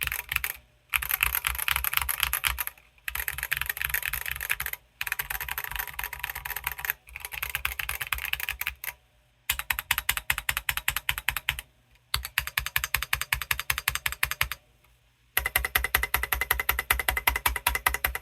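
Drop Sense75 mechanical keyboard with Drop Holy Panda X tactile switches and SA-profile keycaps, typed on fast in bursts of about two seconds with short pauses between. The stock, unmodded board is heard here, and its sound is judged to need a lot of work to be even halfway decent.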